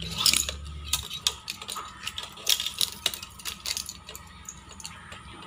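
Irregular clicks and light metal knocks from a steel-framed foot air pump being handled and unfolded, its pedal frame and hinge parts clicking.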